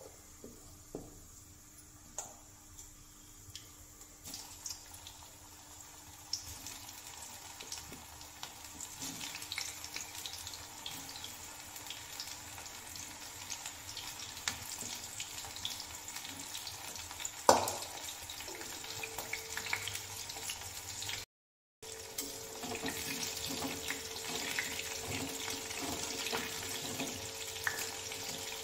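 Besan-coated cauliflower florets deep-frying in hot oil in a kadai: a steady sizzle with crackles that grows louder as more florets are added. One sharp tap rings out about halfway through.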